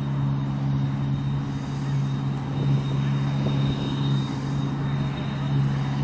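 Deutz-Fahr 5690 HTS combine harvester running steadily at working speed while it cuts barley: an even engine note with a thin, steady high whine above it.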